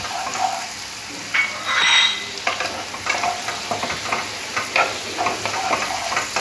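Chopped onion, capsicum and green chillies sizzling in hot oil in a nonstick kadai while a wooden spatula stirs them, scraping against the pan again and again, with one louder scrape about two seconds in.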